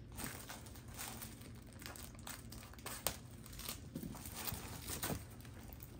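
Plastic food packets crinkling and rustling as they are handled and pulled out of a cardboard box, with a few sharper crinkles in the second half.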